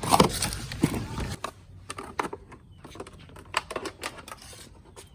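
Irregular light clicks and crackles of plastic bottles being handled while the bottle fish traps are finished. A louder stretch with a voice-like or creaking sound comes in the first second or so.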